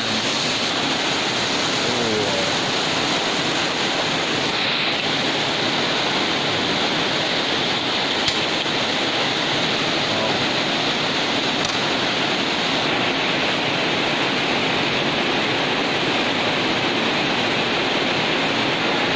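Steady rushing noise from a large wok of duck curry cooking over a gas burner.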